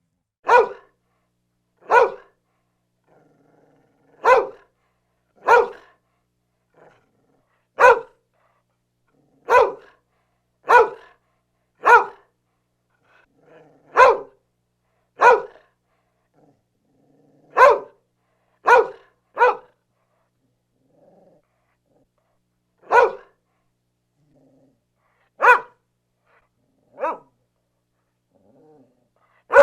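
A dog barking in single sharp barks, about sixteen of them, spaced one to three seconds apart with silence between. There are a few quick pairs, and a longer pause in the middle.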